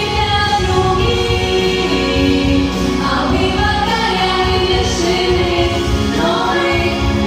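Several voices singing together in long held notes over a backing track.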